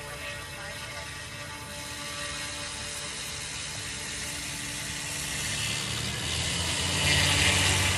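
Goosky S2 electric RC helicopter in flight, its motor and rotor giving a steady whine of several pitches. A rushing noise swells and grows louder near the end.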